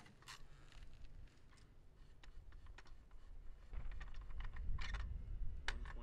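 Light clicks and scrapes of a short bolt-action rifle being handled after a shot, with a low rumble in the second half.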